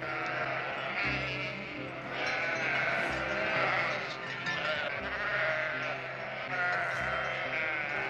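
A flock of sheep bleating, many calls overlapping one after another, over background music with a low note pulsing about every two seconds.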